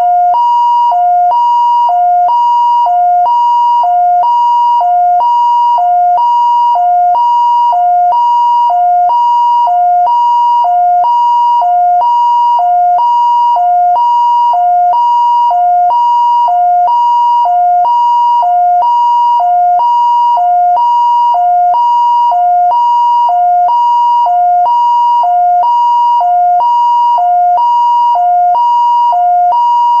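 Taiwanese fire engine siren sounding its two-tone hi-lo pattern, a higher and a lower note alternating evenly about once a second. It is loud and unbroken throughout.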